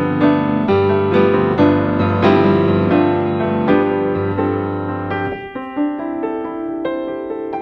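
Background piano music, notes and chords struck at a steady, unhurried pace; the low bass notes drop out about five seconds in, leaving a lighter upper line.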